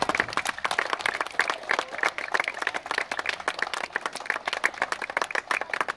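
A small crowd applauding: many hands clapping irregularly.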